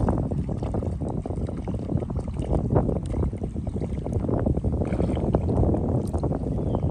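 Wind buffeting the microphone: a loud, uneven rumble with scattered small knocks.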